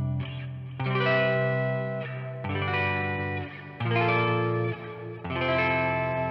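Electric guitar played on its neck single-coil pickup alone, a Sacred Axes Headless Labrys multiscale six-string. Chords are struck four times, each ringing on until the next.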